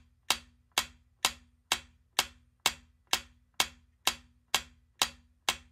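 Quiz countdown timer sound effect: a steady clock-like tick, about two a second, marking the seconds left to answer.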